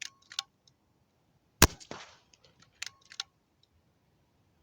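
AEA Challenger Pro 25 PCP air rifle firing one shot, a sharp crack about a second and a half in. Small metallic clicks come shortly before and about a second after it.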